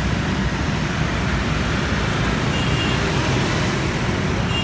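Steady road traffic: motor scooters and cars running past on a busy street, with a small box truck going by, making an even engine and tyre rumble. A faint short high beep sounds about two and a half seconds in.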